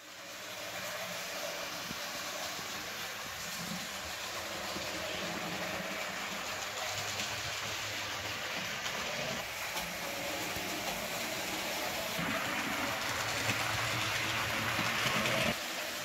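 Jouef model of the 231 K steam locomotive running along the layout's track with a steady mechanical running noise. It grows louder about twelve seconds in as the engine comes close, then drops sharply shortly before the end.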